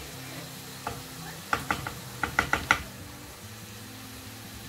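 Wooden spoon stirring rice in a large pan of water, then a quick run of sharp knocks of the spoon against the pan about halfway through. Chopped onions sizzle faintly in oil under a low steady hum.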